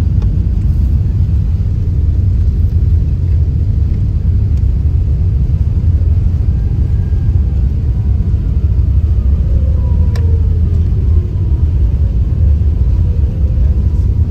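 Jet airliner's engines heard from inside the passenger cabin as a loud, steady low rumble on the runway before takeoff. Faint whines falling slowly in pitch run through the middle, and there is one short click about ten seconds in.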